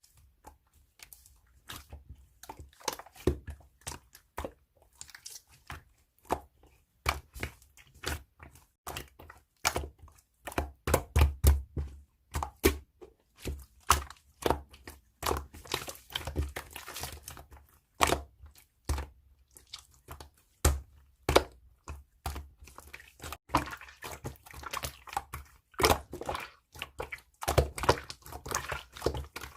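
Irregular crisp clicks and crunches, many with a dull thump beneath, coming in quick uneven clusters.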